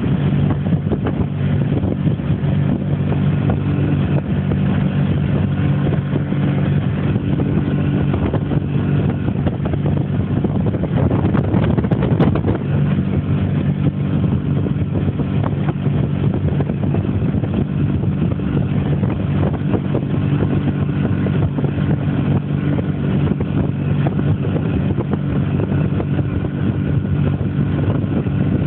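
Motorboat engine running steadily under way, heard from on board as a constant hum of several tones over rushing wind and water noise. About twelve seconds in there is a brief louder rush of noise.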